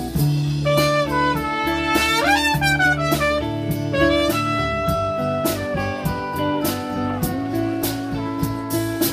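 Live jazz band: a trumpet plays the lead melody in held notes, with a quick rising run about two and a half seconds in, over guitars and a drum kit keeping time.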